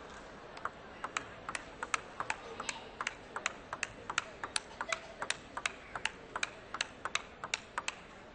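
A table tennis ball being hit back and forth in a long rally: a quick, even run of sharp clicks from the ball striking the bats and bouncing on the table, about five a second, starting about half a second in and stopping near the end.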